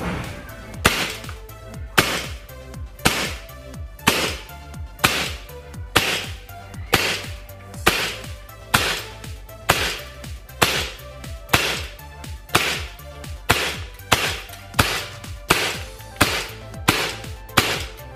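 CO2-powered airsoft gun, run on Point Blank Black Premium CO2, firing a steady string of single shots, about one a second, each a sharp crack with a short hissing tail.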